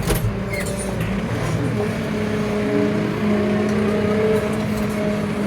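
A 2018 farm tractor's diesel engine running steadily at a constant speed.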